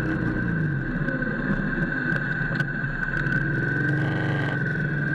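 Motorcycle engine running while riding, its pitch rising and falling a little, with a steady high whine throughout.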